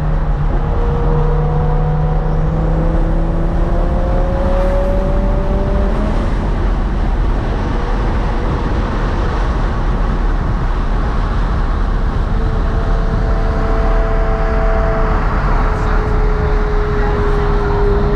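A car cruising: engine drone over loud road noise, with the engine note now and then climbing slowly and settling.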